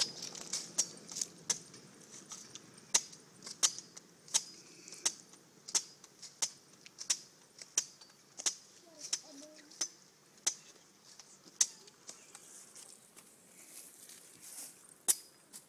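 Machete chopping the husk of a coconut held in the hand: sharp, rhythmic strikes about one every 0.7 seconds, then a pause, then two more strikes near the end.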